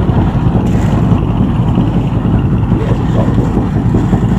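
A boat engine running steadily at close range, with a dense low rumble that holds even throughout.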